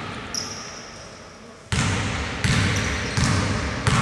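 Basketball dribbled on a hardwood gym floor by a shooter at the free-throw line before the shot: four bounces about three-quarters of a second apart, starting a little under two seconds in, each echoing in the large hall.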